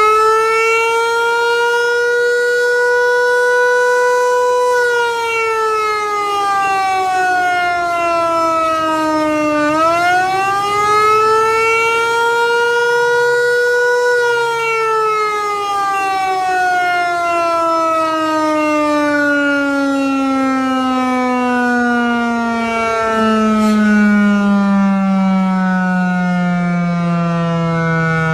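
Federal Signal Eclipse 8 electronic tornado siren sounding a wail during its test. The pitch climbs and holds for a few seconds, falls, then climbs and holds again. About halfway through it begins a long, slow slide down to a much lower pitch.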